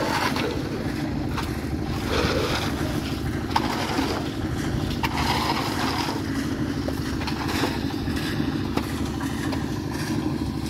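A small engine running steadily at a constant speed, with a rapid, even beat. Rougher noises rise over it briefly about two and five seconds in.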